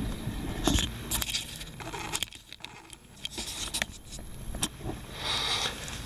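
Rustling, scraping and scattered clicks from a person moving right beside the microphone as he gets up and steps past it.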